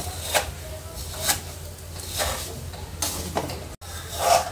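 Slotted metal spatula stirring vermicelli as it fries in ghee in a pan: a short scraping, rustling stroke about once a second, five in all.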